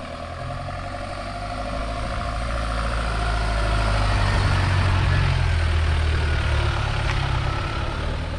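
Mahindra Thar engine pulling the vehicle up a rocky slope, growing louder as it approaches, loudest about halfway through, then easing off.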